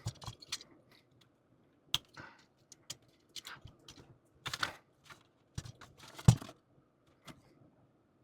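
Small snap-fit plastic model-kit parts being handled and pressed together: irregular sharp clicks and short rustles, the loudest a snap about six seconds in.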